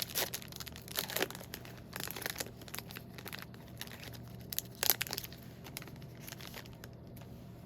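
Trading-card pack wrapper being torn open and crinkled in hand: irregular crackles, loudest about five seconds in, dying away near the end.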